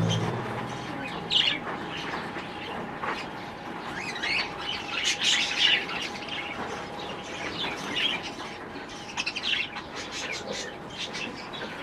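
A flock of small aviary birds chirping, with many short, overlapping calls, under a faint steady hum.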